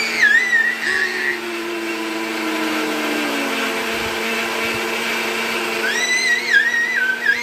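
Electric mixer grinder running steadily with a constant motor hum, grinding the cake mix further. A small child's high-pitched squeals ring out over it at the start and again near the end.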